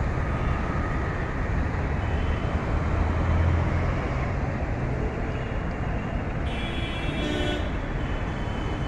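City road traffic passing: car, bus and scooter engines and tyres give a steady low rumble. About two-thirds of the way through, a high steady tone sounds for about a second.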